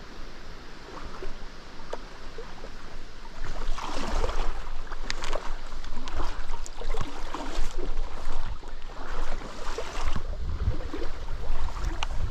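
Someone wading through shallow river water in waders, splashing with each stride; the sloshing gets louder about three and a half seconds in and goes on in an irregular run of splashes.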